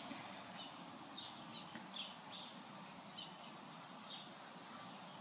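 Quiet outdoor background noise with a few faint, short, high bird chirps scattered through it.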